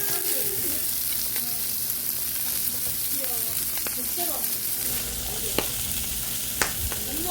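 Food sizzling steadily on a large hot iron griddle, with two sharp clicks about a second apart near the end.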